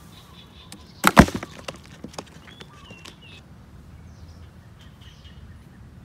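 A cardboard box bird trap dropping shut about a second in: a sharp clatter of impacts, followed by a few lighter knocks.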